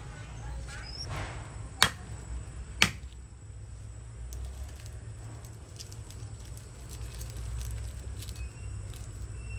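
Two sharp cracks about a second apart, then light, scattered taps of a kitchen knife on a wooden cutting board as it cuts through garlic cloves, over a steady low hum.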